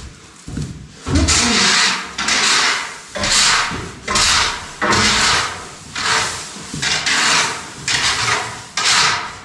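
Rhythmic scraping and swishing strokes, about one a second, starting about a second in: a hand tool being worked over straw bedding and the stable floor while mucking out.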